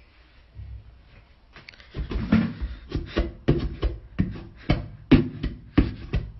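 Toilet plunger pumped in a toilet bowl: a rapid run of strokes, two or three a second, starting about two seconds in.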